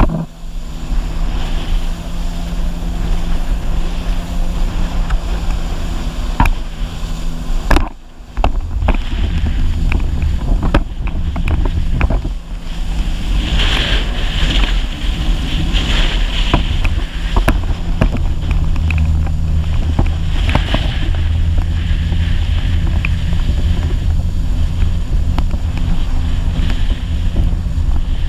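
Personal watercraft engine running steadily at speed, with wind buffeting the microphone and spray and sharp slaps of the hull on the water. The sound dips briefly about eight seconds in.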